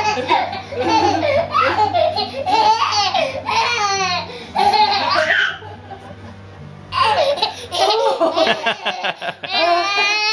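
Toddler laughing in repeated bursts, in two stretches with a short lull about halfway through.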